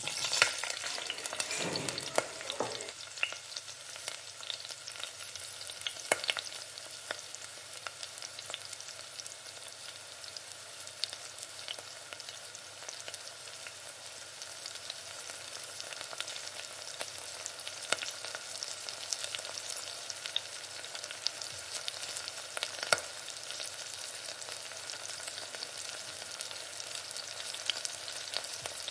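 Hot oil sizzling steadily, as in deep frying, with scattered sharp crackles and pops; it starts abruptly.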